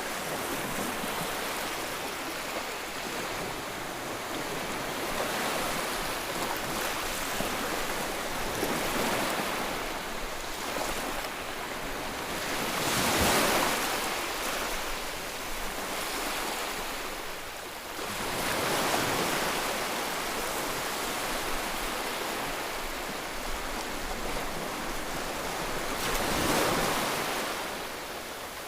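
Sea waves washing onto a beach: a steady hiss of surf with several waves surging in one after another, the loudest about halfway through.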